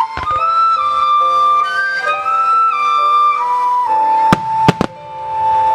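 Flute-like melody of the fireworks show's music, moving in held steps and settling on a long sustained note, with a few sharp firework bangs about four and a half seconds in.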